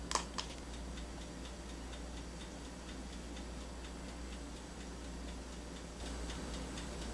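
Steady light ticking, a few even ticks a second, like a clock, over a low steady hum.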